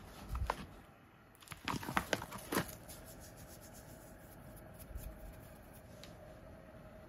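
Plastic salt pouch crinkling as it is handled, in two short crackly bursts in the first three seconds, then quieter. A faint steady hum underneath.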